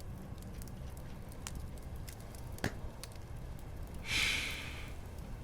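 Crackling fire ambience: a steady low rumble with scattered small pops and crackles. A short breathy hiss comes about four seconds in.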